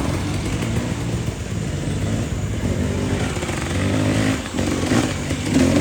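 A motorcycle engine running steadily, its pitch rising and falling a little, with a slight swell near the end.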